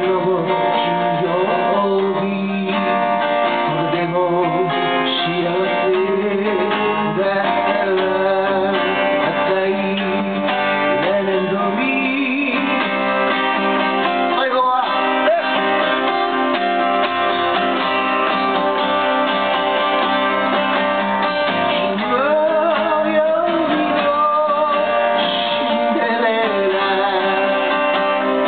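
A song played on acoustic guitar with singing, the guitar strummed steadily throughout.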